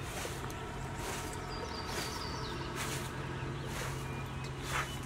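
Straw broom sweeping over a carpet and rugs, a dry swish about once a second.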